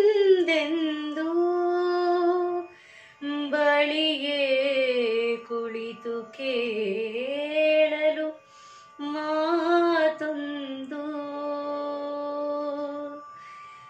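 A woman singing a Kannada song solo in long held phrases, with wavering ornaments on the notes and short breaths between phrases; the last phrase is held softer and stops shortly before the end.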